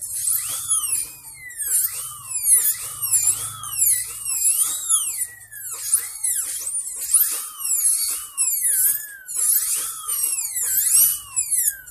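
Dental handpiece whining as it works on the front teeth, its high pitch sagging and recovering over and over, about once a second.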